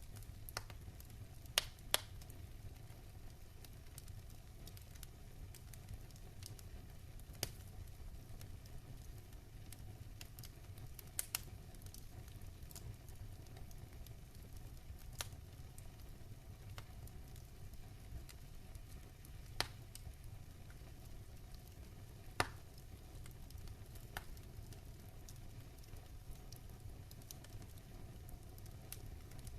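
Wood fire in a fire pit crackling: sharp, irregular pops over a low, steady rumble, with a few louder pops now and then.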